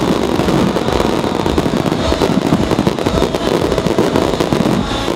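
Fireworks going off in a continuous barrage: many bangs and crackles in quick succession, without a break.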